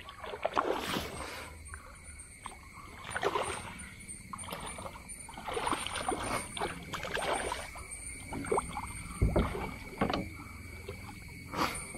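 A hooked Malabar snakehead thrashing at the surface beside a kayak as it is being netted: irregular splashes of water every second or two, with a dull thump a little after nine seconds in.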